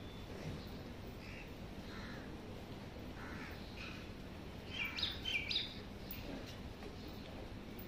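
Birds calling outdoors: a quick cluster of three or four loud, short high chirps about five seconds in, with fainter chirps before it, over steady background noise.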